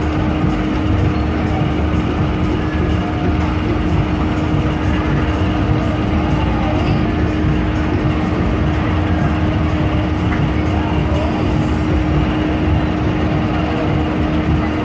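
Fairground ride machinery running: a loud, steady mechanical rumble with a constant hum.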